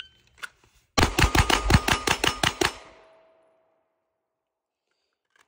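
A pistol fired ten times in one fast string lasting under two seconds, about six shots a second, as rapid point shooting from the draw. The shots hit steel targets, and a steady ringing tone fades away for a couple of seconds after the last shot.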